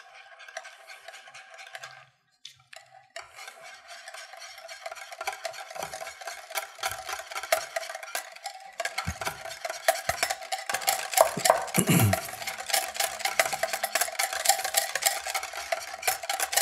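Wire balloon whisk beating a mayonnaise dressing in a glass bowl: rapid clicking and scraping of the tines against the glass. It pauses briefly about two seconds in and gets louder in the second half.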